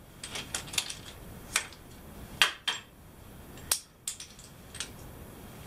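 Irregular light clicks and clinks, about ten, as a flexible shower hose with metal end fittings is handled and uncoiled.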